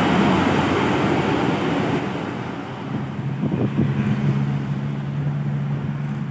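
A tour bus passing on the road with engine and tyre noise that eases off after about two seconds, followed by a steady low engine hum from another vehicle.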